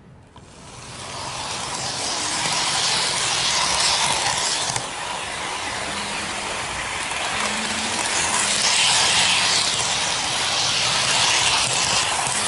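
N-gauge model train running along its track, heard from a camera riding on it: a steady hissing rush from the wheels on the rails and the motor, building up over the first second or two as the train gets moving.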